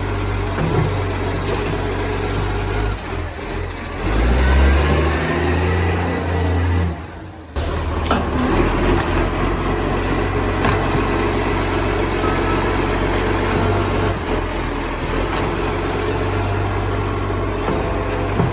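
ACCO garbage truck's diesel engine running loudly through a massive exhaust leak, revving up for a few seconds about four seconds in before settling back to a steady run.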